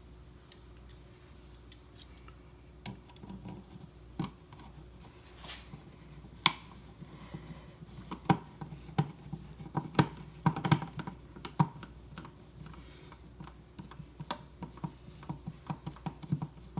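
Hands working an electrical outlet and its wiring: scattered sharp clicks, taps and scrapes of plastic and metal, sparse at first and busier in the second half.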